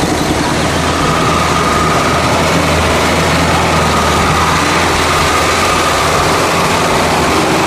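Heavy off-road truck engine running hard and steadily as the truck churns through deep mud and water, with a dense wash of splashing noise over the engine's low drone.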